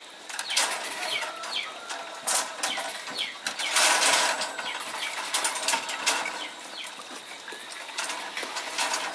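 Irregular clatter of knocks and scrapes from hand work on a concrete foundation beam, with a short rushing, pouring-like noise about four seconds in and scattered short high chirps.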